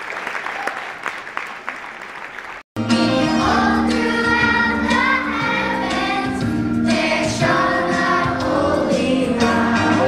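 Audience applause tailing off, cut short abruptly about two and a half seconds in. Then a children's choir sings over an instrumental backing.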